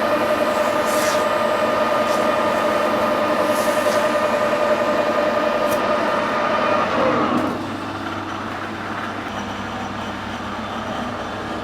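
Metal lathe running with a steady whine while turning down a hardened steel gearbox main shaft with a carbide insert. About seven seconds in the pitch falls away as the lathe is switched off and spins down, leaving a quieter steady hum.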